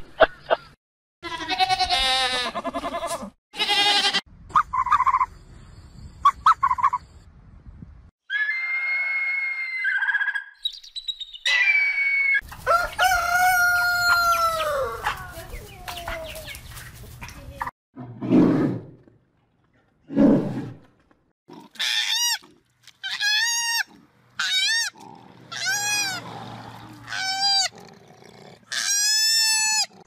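A string of separate animal calls, among them a rooster crowing: one long call that falls in pitch at its end, about halfway through. Near the end come quick repeated short calls, about one a second.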